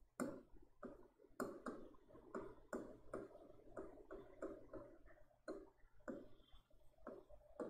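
Pen writing on a board: a quick run of short, faint scratching strokes and taps, a few a second, as a word is handwritten.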